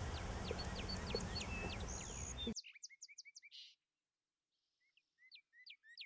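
Songbirds singing, among them a northern cardinal's repeated down-slurred whistles. For the first two and a half seconds the notes are faint over a steady outdoor hiss; after that they are clear with no background, pause for about a second, then come again in a quick series near the end.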